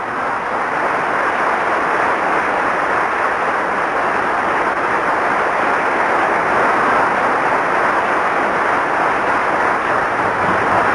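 Theatre audience applauding, a steady dense clapping that builds a little over the first couple of seconds and then holds.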